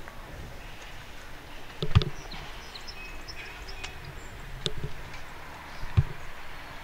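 Steady outdoor background noise with a few sharp knocks, the loudest about two seconds in and two smaller ones near five and six seconds, and faint short high chirps in between.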